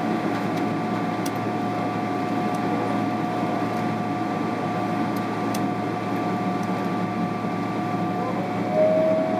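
Airliner cabin noise inside a Boeing 777-300ER: a steady hum of air conditioning and engines with two steady whining tones over it. Near the end the whine steps down slightly in pitch as the sound grows a little louder.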